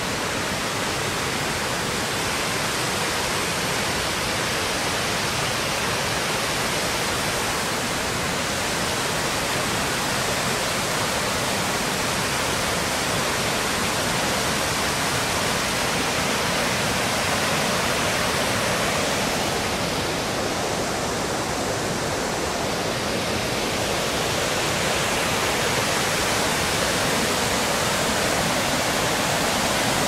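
Waterfall rushing: a steady, unbroken wash of falling water, loud enough to make talking hard.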